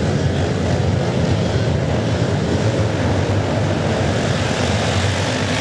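Massed engines of a full grid of classic twinshock scramble motorcycles, revving together and pulling away from the start line as one dense, steady drone.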